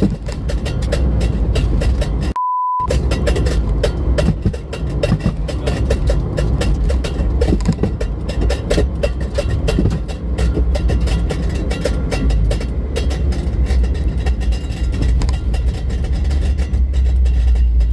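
A car driving at highway speed, heard from inside the cabin: a steady low road and engine rumble, mixed with background music. About two and a half seconds in, everything cuts out for a moment and a short, steady high beep sounds.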